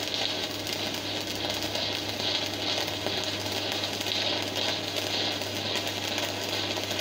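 Shielded metal arc (stick) welding: the electrode's arc running steadily while a straight-line bead is laid on a steel plate, over a steady low hum.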